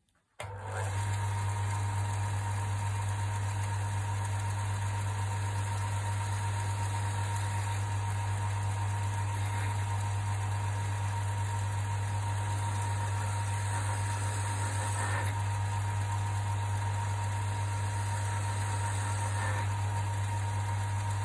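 Wood lathe's electric motor switched on about half a second in and running steadily, with a strong low hum and a thin steady whine.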